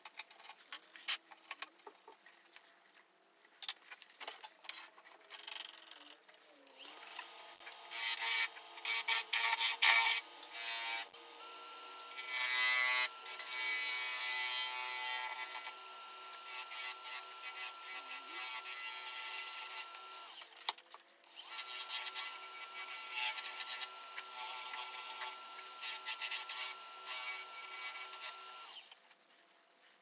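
Metal clicks as the chuck is tightened. Then a Laguna Revo 18|36 wood lathe spins up with a steady motor whine. A gouge cuts a spinning alligator juniper blank in repeated scraping, hissing passes. The lathe stops briefly about two-thirds through and shuts off near the end.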